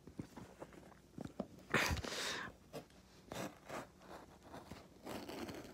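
A small handheld package slicer's blade drawn through packing tape on a cardboard box, with one louder rasping rip about two seconds in. Scattered clicks and taps of the box being handled come before and after it.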